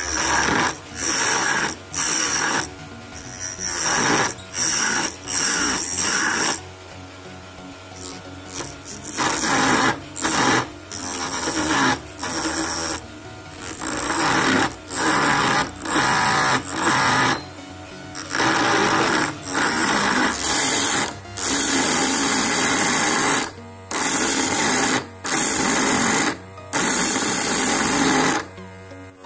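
Homemade lathe driven by a 12 V DC motor spinning a wooden stick while a hand-held sharpened blade cuts into it: repeated scraping cuts, short and spaced apart at first, then longer and nearly continuous toward the end. The motor keeps running between cuts.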